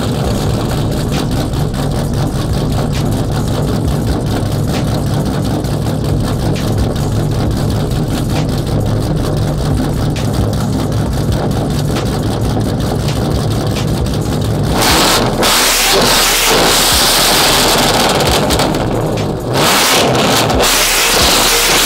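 2013 Ford Shelby GT500's cammed, supercharged 5.8-litre V8 idling with a rapid pulsing beat, heard close behind the exhaust tips. About fifteen seconds in, a loud rushing hiss covers the idle, dipping briefly a few seconds later.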